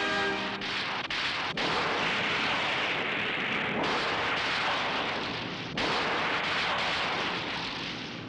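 Television explosion and destruction sound effects: a loud, dense, continuous blast noise that changes abruptly at edits, about half a second, one, and one and a half seconds in, and again near four and six seconds.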